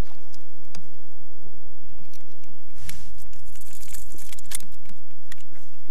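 Scattered clicks, taps and rattling of a sand bass being handled and unhooked from a lure at the side of a kayak, with a denser crinkling rattle around four seconds in.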